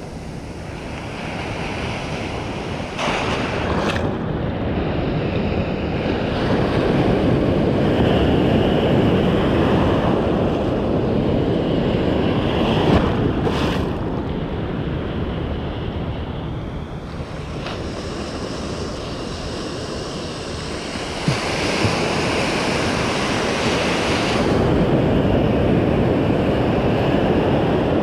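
Ocean surf washing in shallow water, swelling louder and easing off as the waves come and go, with wind buffeting the microphone. A few brief knocks stand out.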